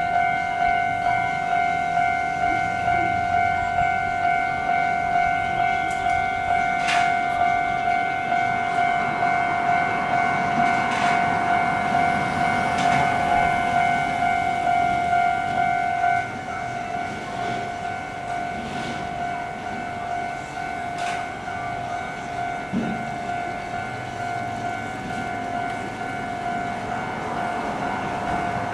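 Japanese railway level-crossing alarm ringing its standard electronic clang, repeated at a steady rhythm, while a train passes through in the middle. About sixteen seconds in, the alarm tone becomes quieter.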